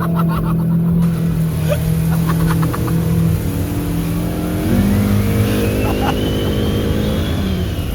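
Off-road vehicle's engine running hard through deep mud, its pitch stepping up a little before halfway. Over the second half a thin whine rises and then falls in pitch.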